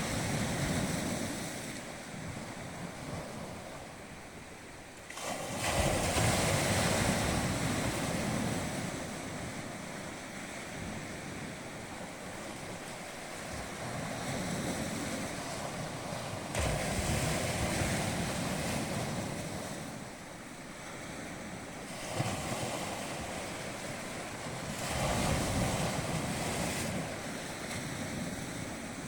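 Sea waves breaking and washing in, a continuous surf that swells and ebbs, with louder surges about five, sixteen and twenty-five seconds in.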